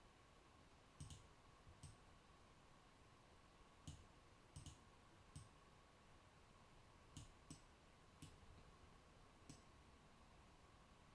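Faint computer mouse clicks, about ten spread irregularly, some in quick pairs, over a faint steady whine.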